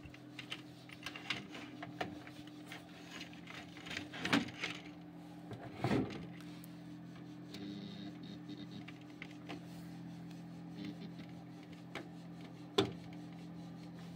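Aux cable being handled and plugged into a desktop computer's audio jack: a few short clicks and knocks, the loudest about four, six and nearly thirteen seconds in, over a steady low hum.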